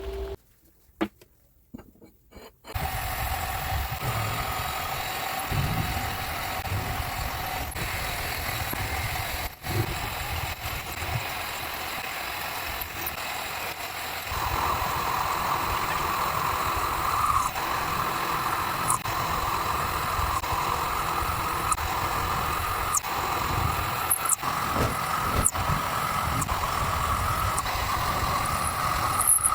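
Electric motor of a workshop machine tool running steadily, starting about two and a half seconds in after a brief silence. About halfway through, a higher steady whine joins it.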